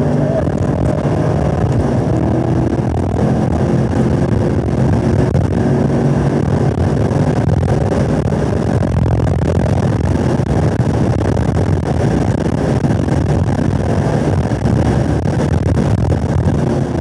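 2017 Camaro SS 1LE's V8 at full throttle, pulling through third into fourth gear, under heavy wind and road noise at over 100 mph, heard from inside the car. The driver lifts off the throttle near the end.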